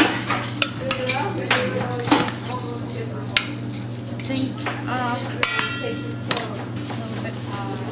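Metal spoon stirring dry muesli (rolled oats, nuts, seeds and dried fruit) in a large stainless steel pot, with irregular clinks and knocks of the spoon against the pot.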